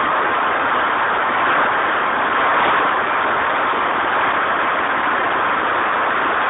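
Deutz diesel engine of a 100 kVA generator set running steadily, a loud, even engine noise.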